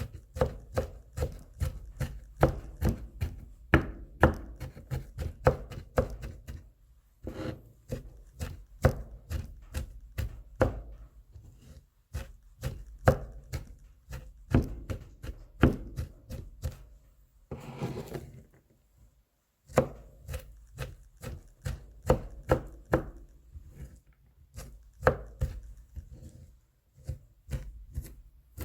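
Kitchen knife mincing garlic cloves on a cutting board: runs of quick chopping strikes, several a second, broken by short pauses, with a brief scrape about two-thirds of the way through.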